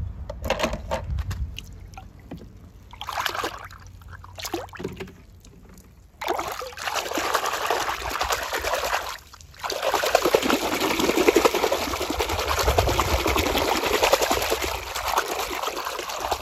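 Water running and trickling in two stretches, a shorter one about six seconds in and a longer, steadier one from about ten seconds on. Before it come scattered light clicks and knocks.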